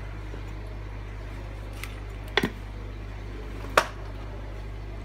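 A cleaver and horseshoe crab shell knocking on a wooden chopping block: a faint tap, then two sharp knocks about a second and a half apart, the second the loudest, over a steady low hum.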